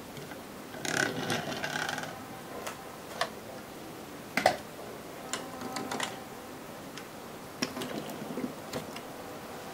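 Plastic Lego models being handled and set down on a wooden tabletop: a rattling clatter about a second in, then scattered sharp clicks and knocks, the loudest about four and a half seconds in.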